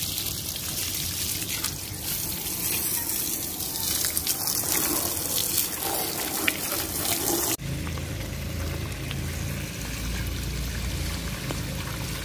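Running water splashing while a motorcycle is washed. The sound changes abruptly about seven and a half seconds in, to a duller, lower water sound.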